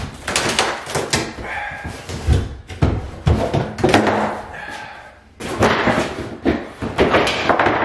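Hammer and pry bar knocking and prying at the wooden deck framing around a bathtub: a run of irregular hard knocks and bangs, easing off briefly about five seconds in before more strikes.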